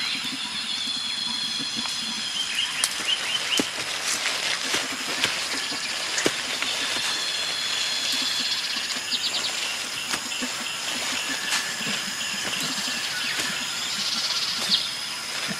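Rainforest ambience: insects droning and trilling in high steady tones, with scattered sharp snaps and crackles of vegetation.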